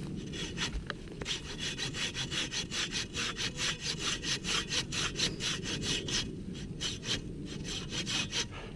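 Silky Katanaboy 500 folding pull saw cutting through a fallen tree trunk with quick, even back-and-forth strokes, each stroke a rasping scrape of the teeth through the wood.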